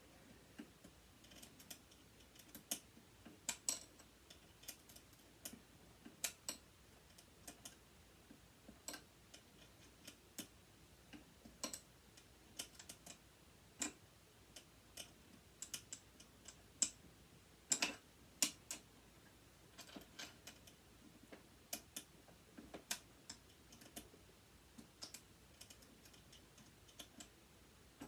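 Faint, irregular clicks and ticks of small metal tools and parts being handled while a sewing machine motor is taken apart, with an Allen wrench working its hex screws.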